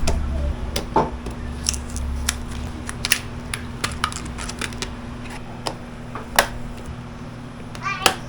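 Scattered clicks and taps of computer parts and small hardware being handled and fitted, over a steady low hum.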